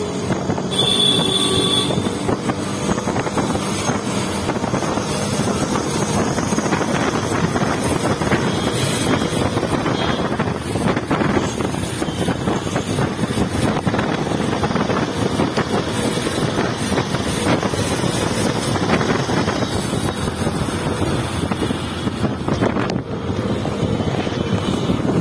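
Wind buffeting the microphone and steady engine and road noise while riding a two-wheeler through city traffic. A brief high-pitched beep sounds about a second in.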